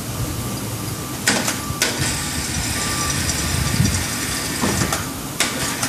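Hoist chain and cast-iron small-block Chevy engine block being lowered into a plastic tub: a few sharp clanks, two early and two close together near the end, over steady background noise.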